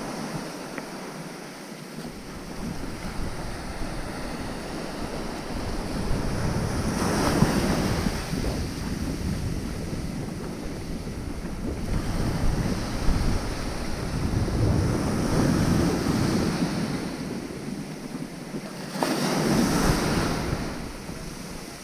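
Ocean surf breaking and washing up the shore, with wind buffeting the microphone; the waves surge in several times, one of the loudest near the end.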